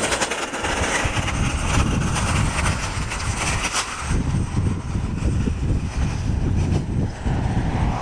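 Wheels rolling fast over rough pavement: a steady, rough rumble with scattered rattles.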